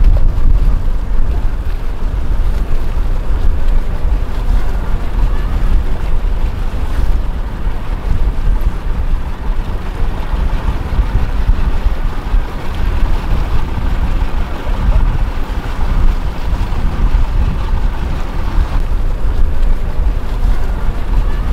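Wind buffeting the microphone in a heavy, gusting low rumble, over the sound of water.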